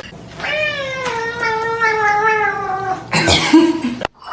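A cat's long drawn-out yowl, lasting over two seconds, wavering and slowly falling in pitch. A short noisy burst follows about three seconds in.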